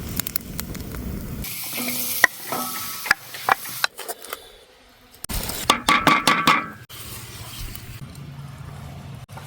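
Cooking sounds in short cuts: a metal utensil stirring, clinking and scraping against a pan while food sizzles. The loudest stretch is a cluster of clinks and scrapes with a ringing tone about two-thirds of the way in.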